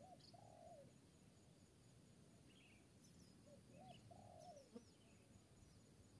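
Spotted dove cooing faintly: two cooing phrases, one at the start and one about three and a half seconds in, each a couple of short notes running into a longer coo. Faint chirps from small birds come between them.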